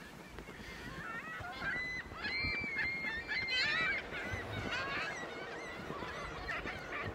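Several gulls calling: short, high, overlapping cries, some rising and falling in pitch, starting about a second in and busiest in the middle.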